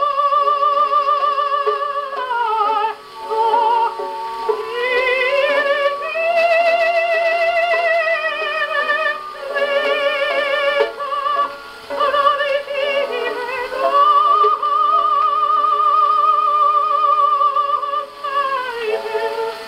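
HMV 102 portable wind-up gramophone playing a 78 rpm record: a classical melody with a strong, wavering vibrato, operatic in character. The sound has little bass or treble.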